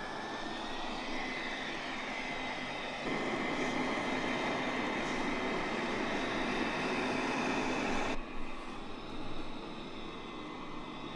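Coredy L900 robot vacuum running, its motor whine rising in pitch in the first second and then holding steady. The suction noise gets louder about three seconds in and drops abruptly about eight seconds in, then carries on more quietly.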